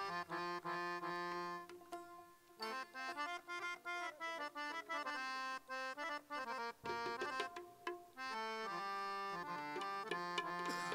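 Harmonium playing a melody, mixing held notes with quick runs of short notes, with a brief break about two seconds in.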